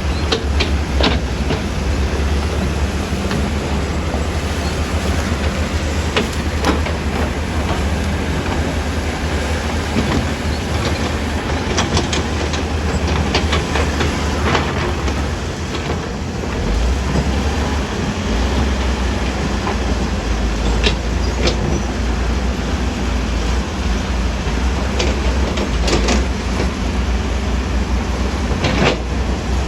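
Diesel engine of heavy earthmoving machinery running steadily with a deep rumble, with scattered metal clanks and knocks.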